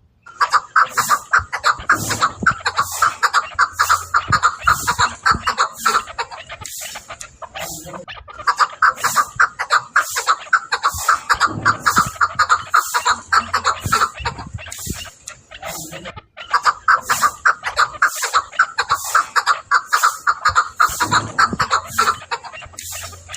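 Chukar partridge (chakor) calling: rapid runs of clucking chuk notes in three bouts of about six seconds each, with short pauses between them.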